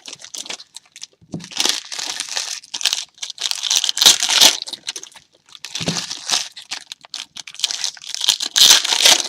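Foil trading-card pack wrappers crinkling and tearing as they are handled and opened, in four or so bursts of a second or two each.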